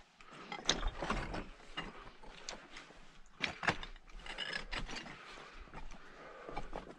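Scrambling over loose talus: rocks clinking, scraping and shifting under boots and hands in irregular clatters, busiest about a second in and again about three and a half seconds in.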